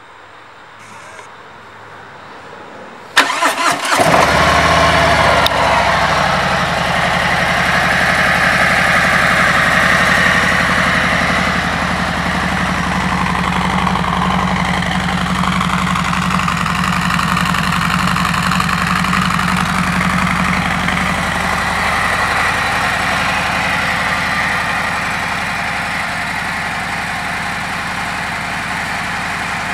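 2017 Harley-Davidson Tri Glide Ultra's Milwaukee-Eight 107 V-twin being started. The starter cranks briefly about three seconds in, the engine catches a moment later, and it settles into a steady idle that grows slightly quieter near the end.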